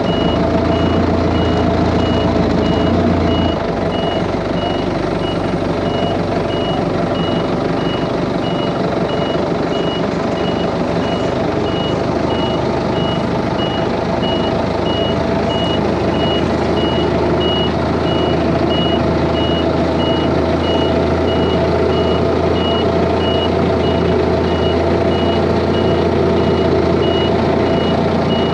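Forklift's backup alarm beeping in an even, rapid series of high beeps over the steady running of its engine while it manoeuvres. The engine note drops slightly about three seconds in.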